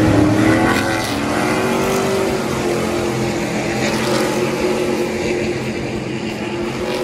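Race trucks' engines running as they pass along the track: a steady engine drone with several tones, rising slightly about two seconds in.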